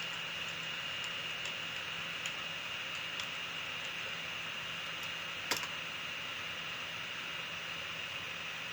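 MacBook Pro keyboard making the popping noise that is its fault: one sharp pop about five and a half seconds in, with a few fainter clicks before it, over a steady hiss and a thin high whine.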